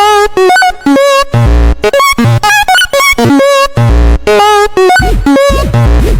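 Loud, choppy electronic music: short pitched synth notes with a wobbling vibrato, cut off and restarted several times a second over heavy bass hits. Near the end, bass tones sweep up and down.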